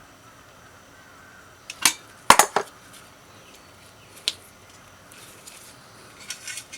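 Sharp clicks and knocks, like small metal stove parts being handled: a few around two seconds in, one at about four seconds, and a quick cluster near the end.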